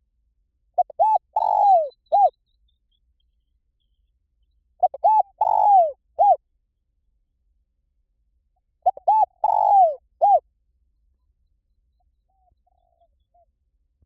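Spotted dove cooing: three phrases about four seconds apart, each made of two or three short coos, a longer falling coo and a short closing coo.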